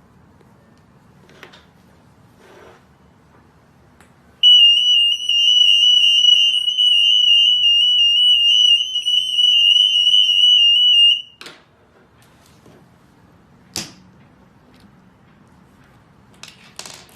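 Retail anti-theft alarm sounding. It is one loud, high tone with a fast slight wobble that starts about four seconds in and cuts off about seven seconds later. A few sharp clicks and taps from handling come before and after it.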